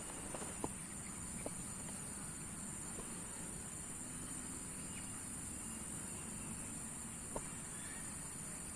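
Steady, high-pitched chorus of insects, likely crickets, holding one unbroken tone, with a few faint sharp clicks about half a second, a second and a half, and seven seconds in.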